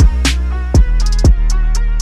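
Background music with a heavy electronic beat: deep kick drums that drop in pitch, three in quick succession, with short crisp hi-hat ticks between them over a steady bass.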